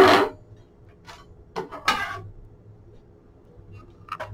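Quiet handling noises: a few short, light clatters as the lampshade's parts and wire ring are picked up off the table, over a faint steady hum.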